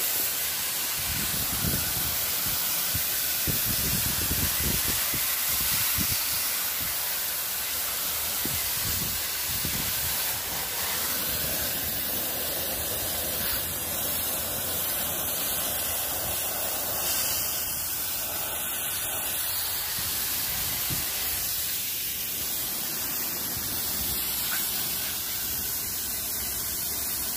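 A steady hiss of a fine water jet from a hose nozzle playing over the aluminium fins of an air-conditioner condenser coil, rinsing the dirt and soap off it. A few dull low knocks come in the first several seconds.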